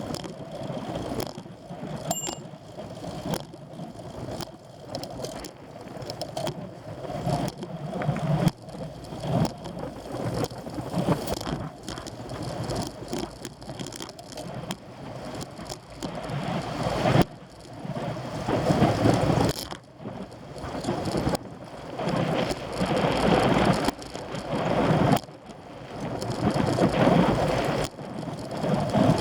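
Wind buffeting the microphone of a camera on a moving road bike, swelling and dropping every second or two, with rattle from the bike over the road.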